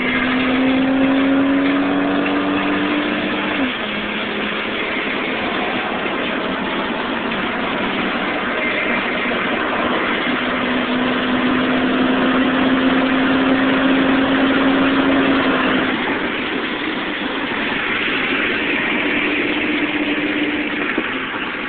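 A 1992 Chevy Lumina Z34's 3.4-litre DOHC V6 accelerating hard, heard from inside the cabin over heavy road and wind noise. The engine note climbs and drops back suddenly at an upshift about four seconds in, then climbs again and drops near sixteen seconds.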